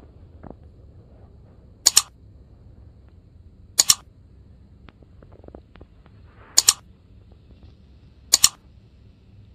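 Four sharp double clicks spaced about two seconds apart: mouse-click sound effects for an animated like, share, subscribe and bell button. Faint room tone underneath.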